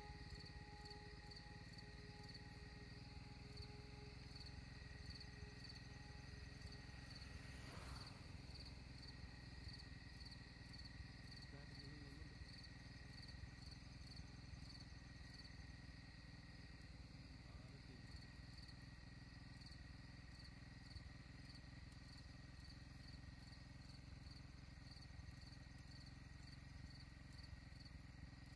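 Insects chirping in the surrounding scrub, a faint high pulsing at about two pulses a second over a steady thin whine. There is a single sharp click about eight seconds in.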